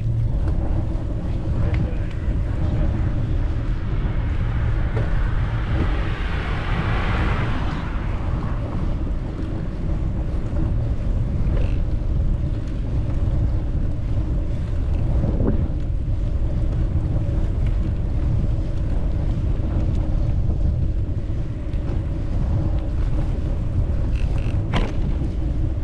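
Wind buffeting the microphone as a steady low rumble. A louder rushing swell comes about six to eight seconds in.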